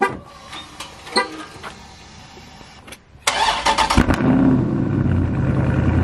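Dodge Charger Scat Pack's 392 HEMI V8 cold start: after a few faint clicks, the starter cranks and the engine fires about three seconds in, then settles into a loud, steady cold idle.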